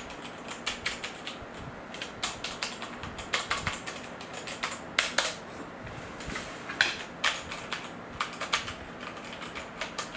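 Typing on a MakThing K77 mechanical keyboard with red (linear) switches: uneven runs of key clicks and bottoming-out clacks, several a second with short pauses.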